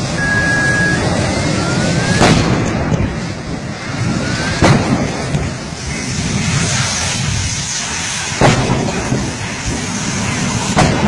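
Gas cylinders bursting one after another in a blazing vehicle fire: four sharp bangs, a couple of seconds apart, over the steady rushing roar of the flames. A rising whistle leads into each of the first two bangs.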